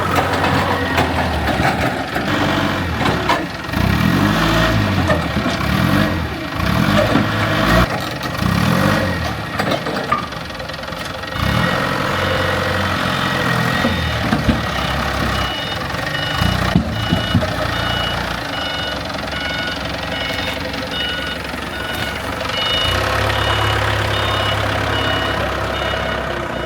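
A construction machine's diesel engine running and revving. From about halfway through, a reversing alarm beeps at an even pace over it.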